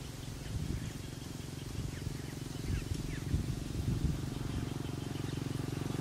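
Faint short chirps of small birds over a low rumble, with a steady engine hum growing louder in the last second or two.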